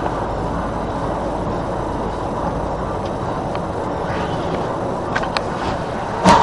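Steady road and engine noise heard from inside a moving vehicle's cabin, then a sudden loud bang near the end as the car ahead collides with the truck.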